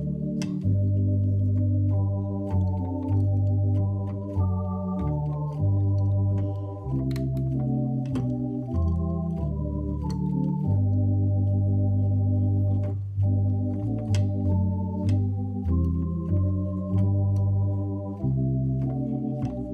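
Organ playing slow, sustained chords over a moving bass line, each chord held for a second or two.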